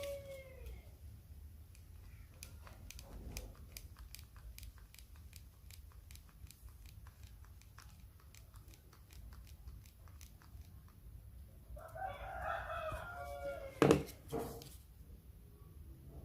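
A rooster crowing about twelve seconds in, with the tail of another crow right at the start. A single sharp knock just before fourteen seconds is the loudest sound, and faint clicks are dotted through the quiet stretch between.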